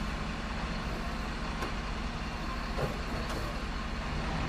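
Steady diesel truck engine running sound, with a low hum and a few faint clicks, of the kind a toy garbage truck's sound module plays through its small speaker.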